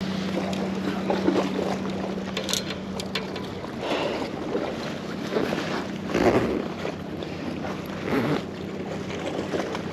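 Wind buffeting the camera microphone in irregular gusts over the sea's wash, with a steady low hum underneath and a few small clicks.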